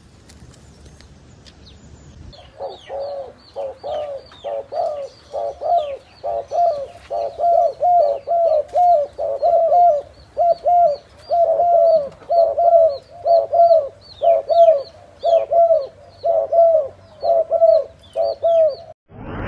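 Spotted doves cooing: a long run of short, low, arched notes, about two a second, starting about two seconds in and stopping just before the end.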